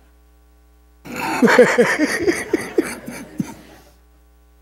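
Congregation laughing, starting about a second in as a burst of many voices with short falling "ha" strokes, then dying away within about three seconds.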